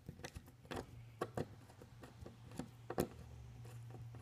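Faint, irregular clicks and ticks of a Torx screwdriver turning a screw out of a sunroof visor bracket, over a steady low hum.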